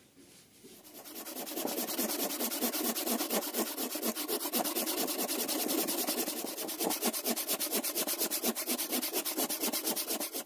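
Handsaw cutting down the grain into the end of a wooden block held in a vise: fast, even back-and-forth strokes that start about a second in and build up, then stop near the end.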